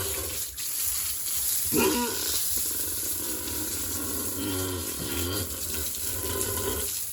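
Pigs grunting, one short loud call about two seconds in and fainter ones later, over a steady rush of running water.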